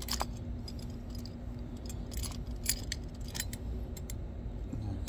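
Scattered light metallic clicks and rattles from a pair of locking pliers being handled and clamped onto a plastic 3D-printed part, one click a little louder about two and a half seconds in, over a steady low hum.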